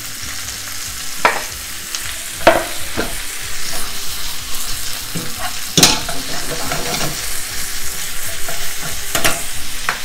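Beef strips, chorizo and onions sizzling in hot oil in a non-stick frying pan, just after the raw beef goes in. A spatula scrapes and knocks against the pan as it is stirred, in several sharp clicks, the loudest about six seconds in.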